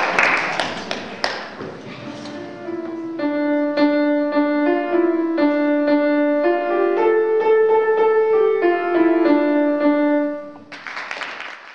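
Applause trailing off over the first couple of seconds, then a piano playing a simple tune in single notes over a lower line for about eight seconds. A short burst of noise comes just before the end.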